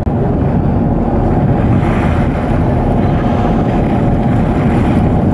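Tour boat's engine running with wind buffeting the microphone: a steady rumble and rush.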